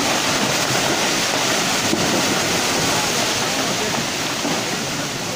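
Muddy floodwater rushing down a forested hillside, a steady, even rushing noise.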